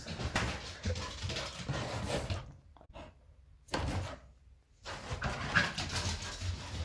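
A dog scuffling and rustling as it moves about inside a small wooden cupboard: three bursts of rough noise with short quiet gaps between them.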